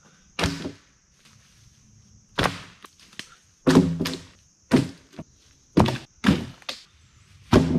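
Dead pine logs dropped and knocking onto a pile of logs: about eight hollow wooden thunks at uneven intervals, each ringing briefly.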